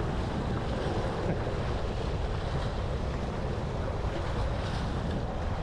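Small sea waves washing against shoreline rocks, with wind rumbling on the microphone: a steady wash of noise with no separate events.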